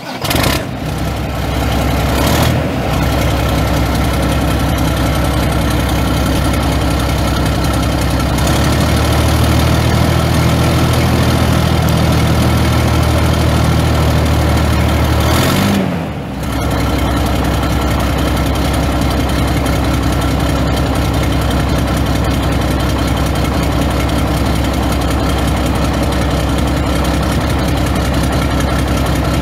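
Mack six-cylinder turbo diesel engine of a dump truck idling steadily just after starting, with a brief dip in sound about halfway through.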